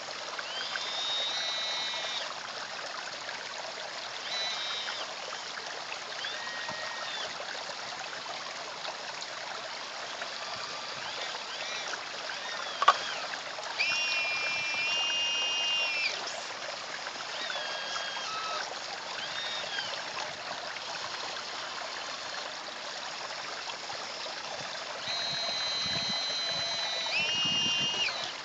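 Small electric motors of a radio-controlled model excavator whine in short bursts, each rising to a steady pitch and dropping away, as the boom, arm and bucket move. Under them runs a steady trickle of pond water, and a single sharp click comes about halfway through.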